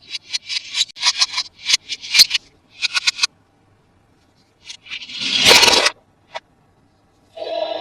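Rapid scraping and scratching strokes of toy packaging being handled, then a louder rush of scraping about five seconds in and a single click. Near the end a steady pitched electronic tone starts up, likely from the toy.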